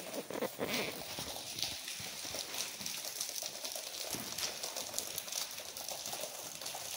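Rain falling on a wet stone-paved courtyard, with many close drops ticking and splashing irregularly over a steady hiss.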